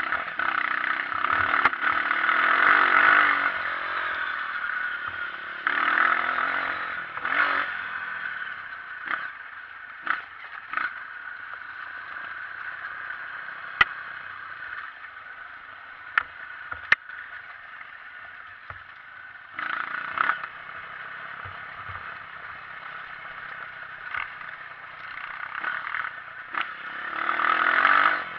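Honda CRF230 dirt bike's single-cylinder four-stroke engine running while riding over rough ground, with its revs rising several times. There are sharp clattering knocks from the bike and terrain in between.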